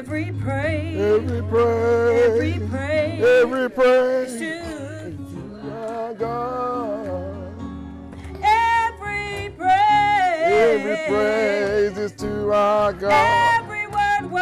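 Gospel song sung with vibrato over instrumental accompaniment with a steady bass line.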